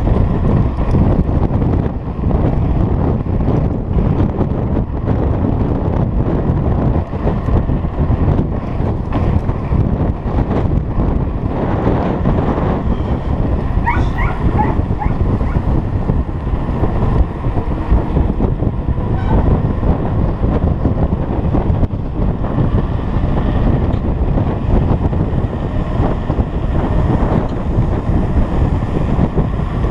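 Wind buffeting the microphone of a mountain bike moving at speed: a loud, steady rush with scattered rattles from the bike on the road, and a short squeak about halfway through.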